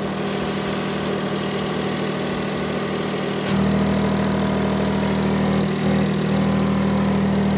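Smart ForTwo 451's three-cylinder engine idling steadily, heard close to its leaking exhaust. A hiss of exhaust gas blowing out through the pipework sits over the engine hum for the first three and a half seconds, then cuts off suddenly and the engine's low hum grows louder.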